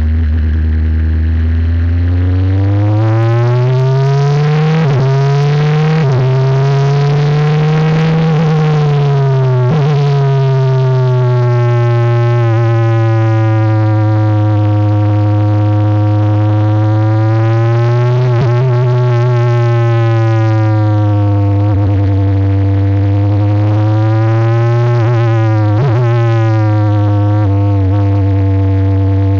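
Onboard sound of a Tatuus Formula 4 single-seater's Abarth 1.4-litre turbocharged four-cylinder engine driven on track. The engine note climbs through the first several seconds, then rises and falls through corners and gear changes, with a few sharp cracks.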